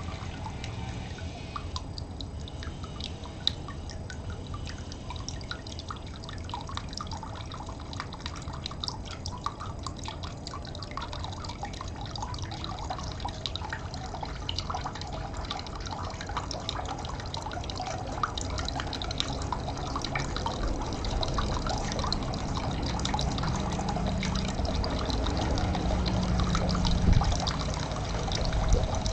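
Water trickling and dripping, with many small irregular drips over a steady low rumble; it grows louder over the last several seconds.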